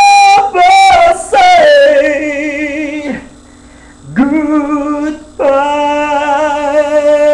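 A man singing a cappella in a high voice: three sung phrases with vibrato, the last a long held note.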